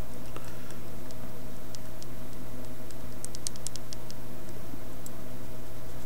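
Steady low hum throughout, with faint small clicks and ticks as a metal sculpting tool presses and scrapes green stuff putty against a cutting mat, bunched in a quick run a little past halfway.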